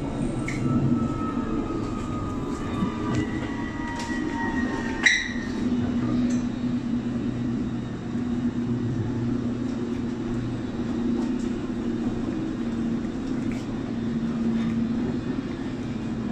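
London Underground District line train running between stations, heard from on board: a steady low rumble of wheels on track and a faint whine falling slightly in pitch over the first few seconds. Scattered clicks run through it, and a single sharp metallic clank rings briefly about five seconds in.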